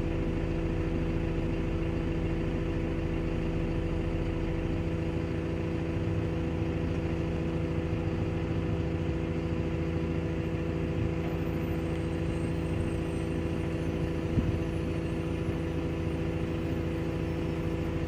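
Heavy-equipment diesel engine idling steadily at a constant pitch, heard from inside a wheel loader's cab. A single short knock sounds about three-quarters of the way through.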